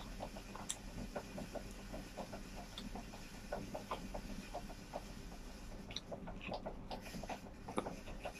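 Close-up chewing and lip-smacking of a person eating rice and shrimp, a quick run of small wet smacks and clicks, several a second.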